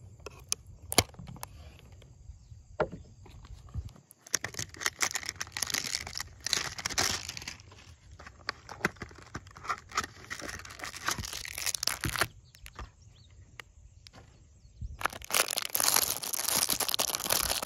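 A baseball card hanger box being opened by hand: a few clicks, then packaging crinkling and tearing in two long spells with a short lull between. The second spell is the plastic wrapper around the stack of cards being torn open.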